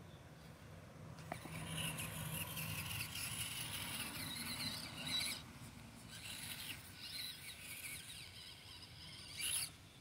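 Axial SCX24 Deadbolt mini RC crawler's electric motor and gearbox whining under throttle. The whine starts about a second in and rises and falls in pitch as it drives. It surges louder until about halfway, eases off, then gives a short loud burst near the end.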